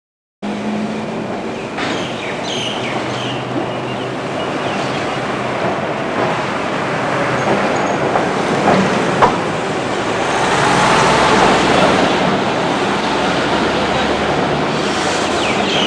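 Electric tram approaching along its rails: a steady rumble of wheels on track that grows louder as it nears, with a sharp click about nine seconds in. The sound cuts in suddenly about half a second in.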